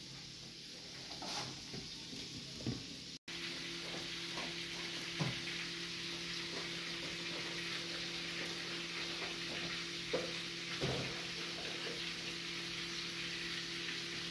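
Steady sizzling hiss of food frying in oil, over a low steady hum, with a few light clicks and knocks. The hiss comes in abruptly about three seconds in.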